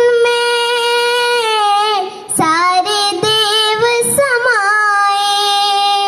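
A young girl singing a Hindi song solo into a microphone, holding two long drawn-out notes. The second note begins after a short break about two seconds in, and each note wavers at its end.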